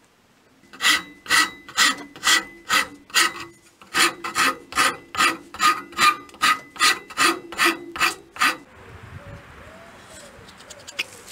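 Hand file scraping down the end of a wooden hatchet handle held in a vise, in about eighteen brisk strokes at roughly two and a half a second, with a short break a third of the way through. The handle is being slimmed to fit the hatchet head's narrow eye. The strokes stop near the end, leaving a faint background.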